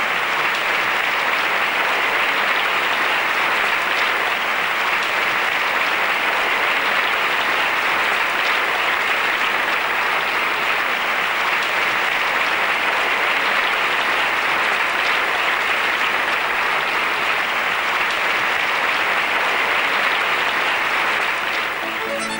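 Large theatre audience applauding steadily, a dense even clapping that eases off slightly near the end.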